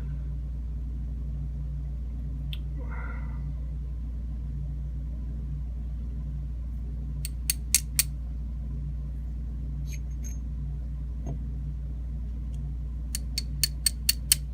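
Small sharp metal clicks from handling the pins, springs and tools of a Kwikset lock being taken apart: a quick group of four about halfway through, and a faster run of six or seven near the end. A steady low hum runs underneath.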